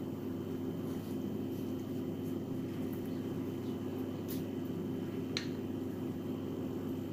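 A steady low hum, like a fan or small motor, with a few faint clicks.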